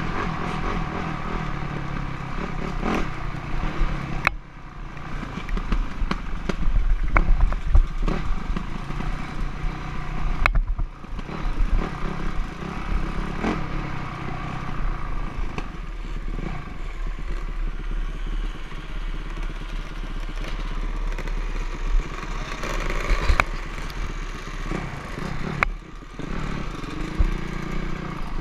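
Dirt bike engine running under changing throttle during off-road riding, with clattering knocks and a heavy low rumble. The level drops off sharply twice, about four and ten seconds in.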